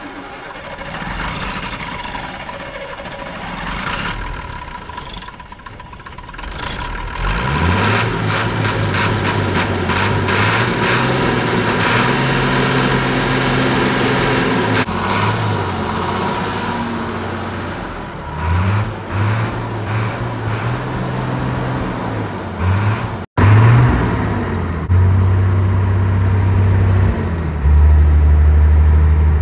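Perkins 6354 six-cylinder diesel cranking on the starter for about seven seconds before it catches, then running unevenly with the revs rising and falling, and later settling to a steady run. The hard start is from air in the fuel system, which has just been bled through the injector lines and pump bleeder.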